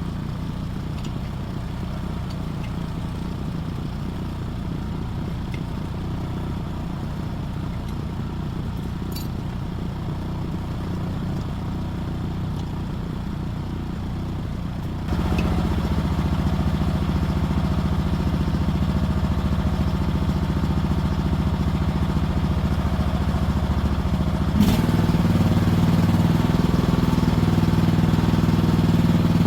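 Mini excavator's engine running steadily. About halfway through it abruptly gets louder, and a sharp click near the end is followed by another slight rise.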